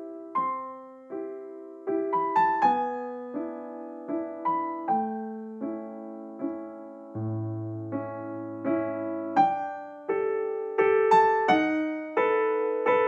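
Background music: a soft piano melody of single struck notes, each ringing and fading before the next.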